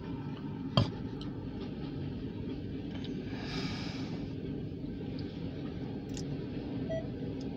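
Covered grain hopper freight cars rolling slowly past, a steady low rumble heard from inside a car, with one sharp click about a second in and a brief hiss a little past halfway.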